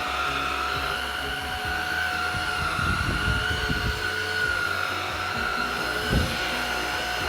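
Xiaomi Mi Handheld 1C cordless stick vacuum running steadily, its motor giving a constant high whine over a rougher low rumble.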